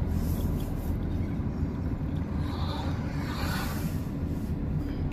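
A vehicle driving on the road: a steady low rumble of engine and tyre noise.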